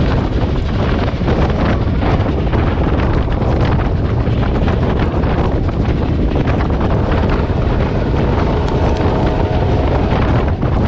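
Wind buffeting the microphone over the steady rumble of a moving train. About seven seconds in, a faint pitched tone with several notes comes in for a few seconds.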